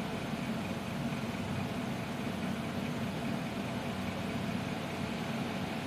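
Steady low hum of a running fan motor.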